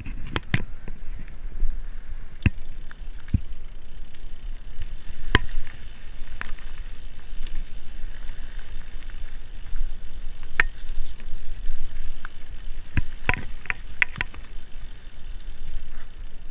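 Mountain bike riding over a rough dirt trail, heard from a handlebar-mounted camera: a steady low rumble from the tyres rolling over the ground, with scattered sharp clicks and knocks as the bike rattles over bumps, several louder ones close together near the end.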